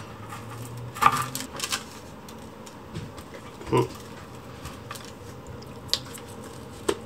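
Kitchen knife cutting through a set slab of rocky road on parchment over a wooden board, chocolate and nuts cracking: a cluster of cracks and knocks about a second in, then a few separate clicks as pieces are broken apart by hand.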